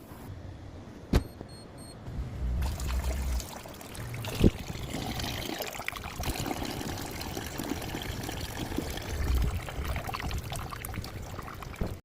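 Water pouring and trickling, with low rumbling now and then and two sharp knocks, about one second and four and a half seconds in.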